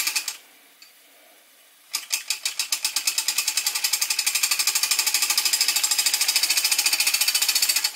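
Homemade model steam engine with a single oscillating cylinder, running on live steam: its rapid exhaust chuffing stops abruptly just after the start as the flywheel is stopped by hand. About two seconds in it starts again and chuffs rapidly and steadily until the end.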